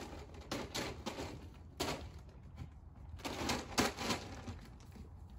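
Horse feed bag rustling in a few irregular bursts as donkeys nose and tug at it. The loudest burst comes a little after three seconds in.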